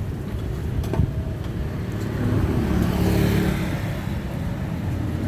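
Street traffic running steadily, with one motor vehicle passing close by and getting louder between about two and four seconds in. A single sharp click sounds about a second in.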